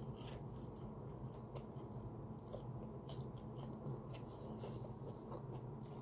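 A person biting into and chewing breaded fried chicken, with short crisp crunches scattered through, over a steady low hum.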